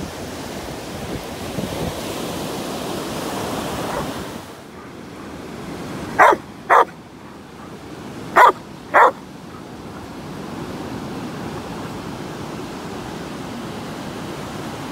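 Surf washing onto the beach, with a Labradoodle barking four times midway, in two quick pairs about half a second apart, the barks the loudest thing heard.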